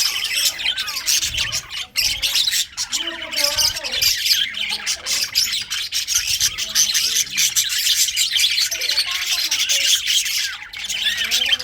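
Budgerigars chattering and chirping without pause, many high calls overlapping.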